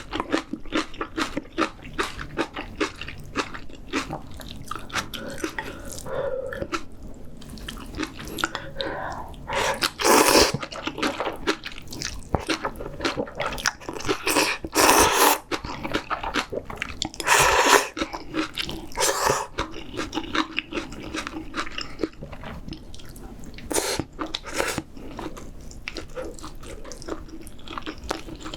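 Close-miked eating of spicy seafood ramyeon: wet chewing with a steady run of small clicks, broken by several loud slurps of noodles, each about a second long, through the middle.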